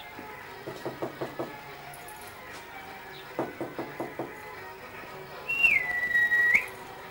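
A loud whistle near the end that slides down in pitch, holds steady for about a second and flicks up as it ends. Under it are faint background music and two short runs of quick notes.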